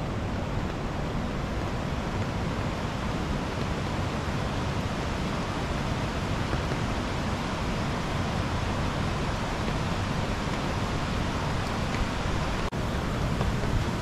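Steady rainfall, a dense even hiss, with a momentary dropout near the end.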